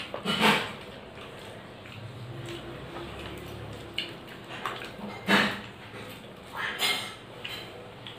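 Mouth noises of a person eating rice by hand, with short loud bursts about half a second in, at about five seconds and near seven seconds.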